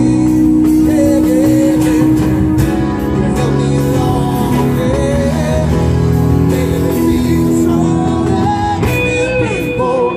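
Live rock band playing: acoustic and electric guitars and drums, with a male lead vocal.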